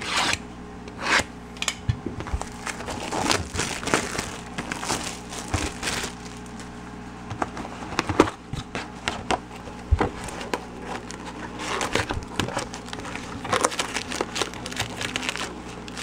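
Cellophane shrink wrap on a trading-card hobby box being slit and torn off, with irregular crinkling and crackling, and the cardboard box and foil card packs being handled near the end.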